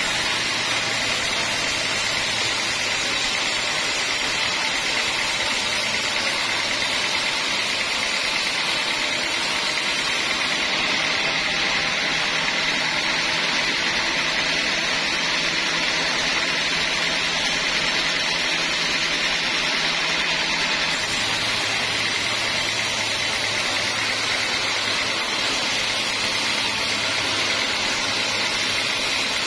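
Band sawmill running steadily, its blade cutting lengthwise through a teak log, with a steady high-pitched whine over the machine noise.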